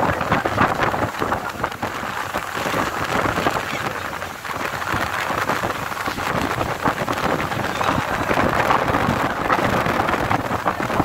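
Steady rushing noise of wind and the churning wake water behind a moving boat, swelling and easing a little in level.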